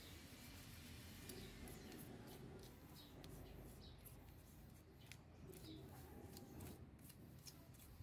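Near silence with faint, scattered small clicks and light handling noises.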